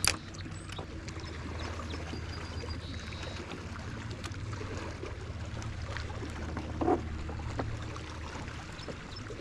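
Bow-mounted electric trolling motor humming steadily, with light water sounds against the hull. A sharp click at the very start.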